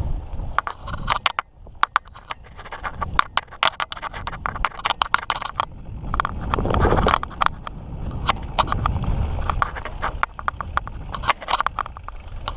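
Mountain bike riding over a rough dirt trail: tyres crunching and the bike rattling with many sharp clicks and knocks, with a low rumble that swells twice in the middle.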